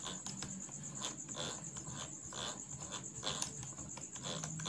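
Crickets chirping steadily and faintly in the background.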